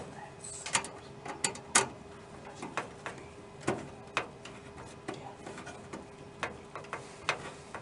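Screwdriver driving the screw that holds a PCI network card's metal bracket to a computer case: faint, irregular small metal clicks and ticks as the screw is turned.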